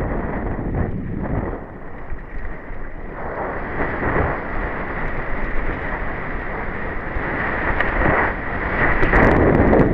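Wind buffeting a helmet camera's microphone on a fast downhill mountain-bike descent, mixed with tyre noise on a dry dirt trail and the bike rattling over bumps. A few sharp clatters near the end.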